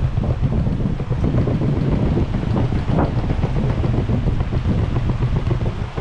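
Wind buffeting the microphone: a loud, uneven low rumble that rises and falls in gusts throughout.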